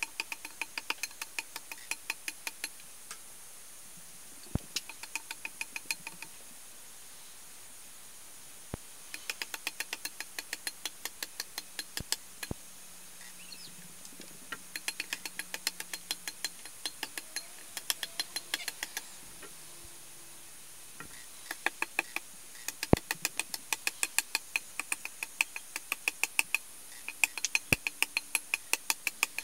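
Hand tool working the face of a log: runs of quick, sharp strikes on the wood, about four a second, broken by short pauses. The work is flattening a previously worked face that had twisted out of flat.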